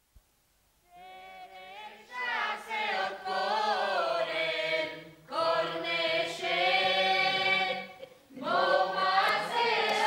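A group of voices singing together in three long phrases with wavering pitch, over a steady low held note, starting about a second in.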